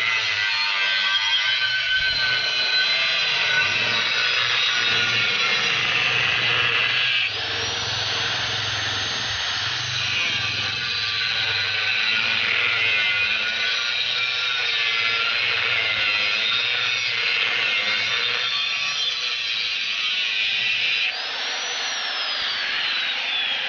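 Angle grinder with a cutting disc cutting through steel clamped in a vise: a continuous, loud grinding screech. About seven seconds in and again near 21 seconds the motor's whine climbs, and near the end the grinder is lifted off and its whine falls away steadily as the disc spins down.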